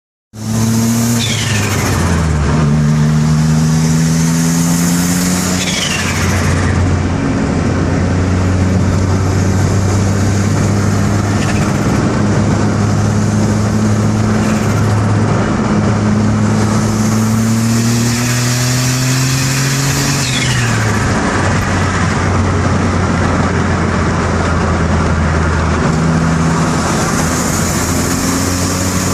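Turbocharged car engine running and being revved, its pitch climbing and then dropping several times. Each time the throttle closes there is a falling turbo whistle and a 'stutututu' turbo flutter, the compressor surging as boost backs up against the shut throttle.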